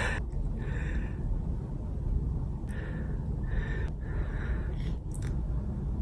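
A man's audible breaths close to the microphone: a sharp gasp, then about four more short, breathy intakes and exhales spread across the next few seconds, over a steady low background rumble.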